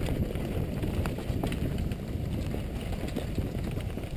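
Downhill mountain bike rolling fast over a rocky dirt trail: steady wind rumble on the microphone, with frequent sharp clicks and rattles from the bike and tyres striking rocks.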